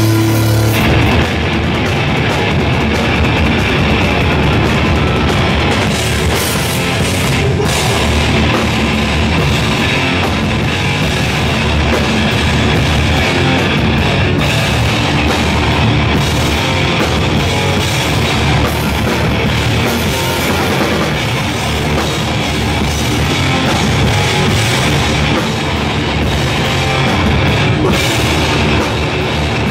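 Hardcore band playing live at full volume: distorted electric guitars, bass and drums. A held note rings for about a second before the full band comes in.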